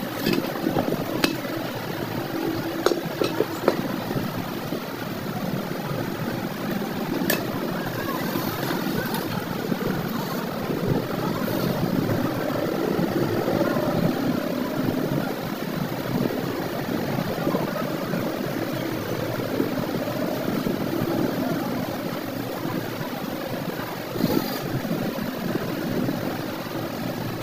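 A workshop machine running steadily, with occasional light clicks and knocks.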